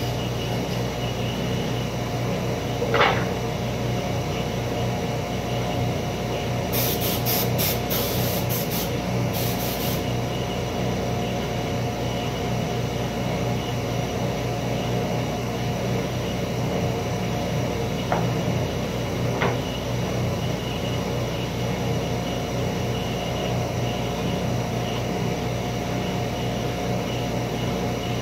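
Woodshop machinery running with a steady hum. A few sharp wooden knocks come as boards are handled on the machine table, once early and twice near two-thirds of the way through. A quick string of short hisses comes about a quarter of the way in.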